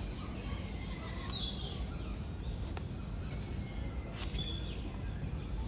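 Birds chirping a few times, short high calls, over a steady low background rumble.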